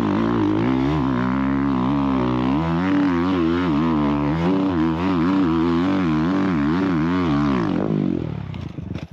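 Dirt bike engine revving hard on a steep hill climb, its pitch rising and falling repeatedly with the throttle. Near the end the engine note dies away as the bike loops out and flips over backwards.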